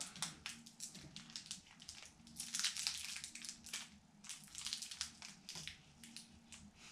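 Banana Hi-Chew candy wrapper being torn open and unwrapped by hand, crinkling and crackling in irregular bursts, densest about two and a half seconds in and again around five seconds.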